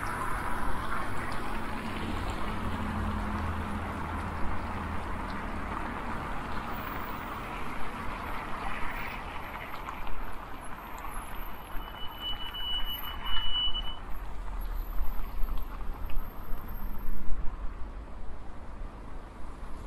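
Road traffic: motor vehicles passing with steady tyre and engine noise, and a brief high whine about twelve seconds in.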